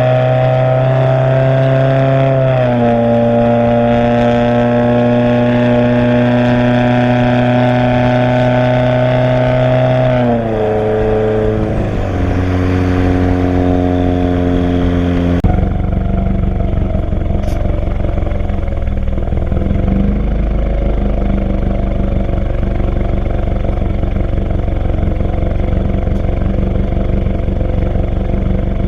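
Straight-piped turbocharged flat-four of a 2017 Subaru Forester XT, with a catless downpipe and 3-inch race exhaust, running loud and steady. Its note drops in pitch in a few steps, then about halfway through turns into a rough low rumble.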